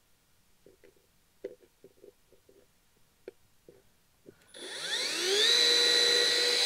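Milwaukee cordless drill spinning up about four and a half seconds in, its whine rising quickly in pitch and then running steady at high speed for about two seconds before it stops sharply. It is drilling screw holes into a wooden cabinet panel. Before that there are only a few faint clicks.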